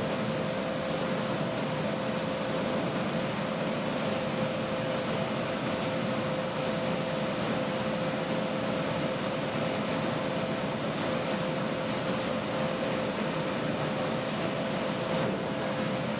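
Steady industrial noise at a steel mill's pusher reheating furnace: a constant rushing noise with a steady two-note hum running through it.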